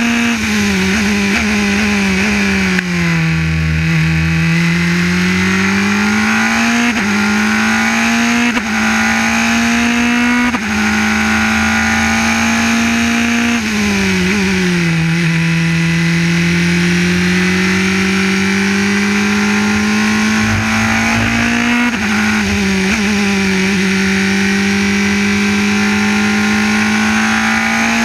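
Formula 3 race car engine heard from its own onboard camera, with wind noise over the open cockpit. The revs drop in quick steps under braking and downshifts about a second in and again around fourteen seconds, then climb steadily as it accelerates out of the corners, with brief breaks at each gear change.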